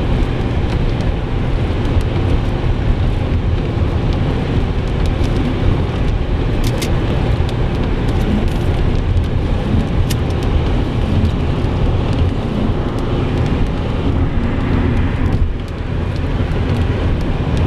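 Steady low rumble of road and engine noise heard from inside a car driving at speed, with a couple of faint clicks about halfway through.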